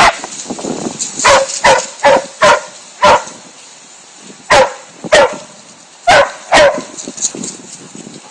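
A dog barking during rough play, about ten short sharp barks in quick groups over the first seven seconds, each dropping in pitch.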